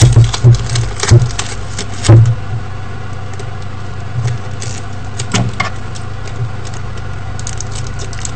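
Hands handling a roll of sticky tape and a thread on a wooden table: scattered clicks and knocks, bunched in the first two seconds and sparse after, over a steady low hum.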